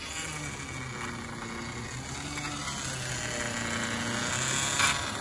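Car engine idling with the power steering pump groaning: a low hum that shifts in pitch every second or so and grows slowly louder. The pump had run nearly dry and has just been refilled, so it still has air in the lines. A short knock near the end.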